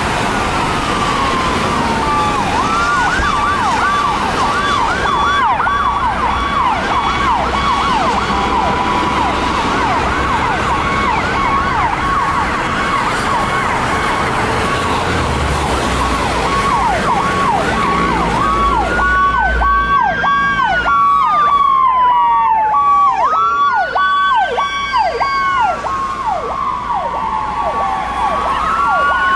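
Emergency-vehicle electronic sirens sounding Powercall tones, more than one at once: a fast yelp of quick falling sweeps, about three a second, over a steady broken tone. About two-thirds of the way through, a slow rising-and-falling wail joins on top.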